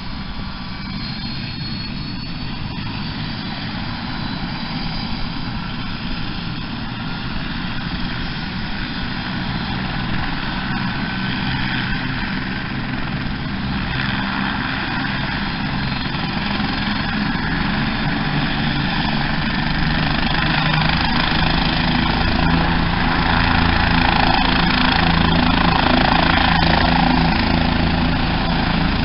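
Helicopter engine and rotor running on the helipad ahead of lift-off: a steady low hum with a thin high whine above it, getting gradually louder.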